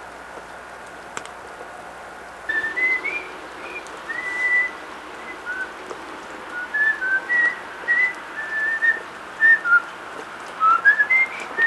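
A person whistling a tune, beginning about two and a half seconds in: a string of short notes, some sliding upward.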